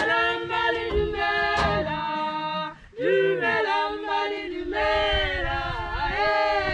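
Several women singing together a cappella in harmony, with long held notes and a brief pause about three seconds in.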